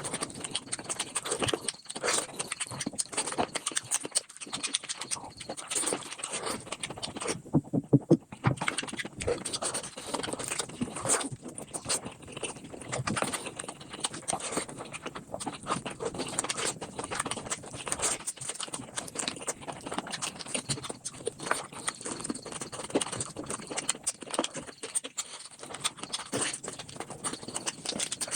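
Close-up eating sounds sped up five times: bamboo shoots being crunched and chewed, a dense, rapid run of clicks and smacks, loudest about eight seconds in.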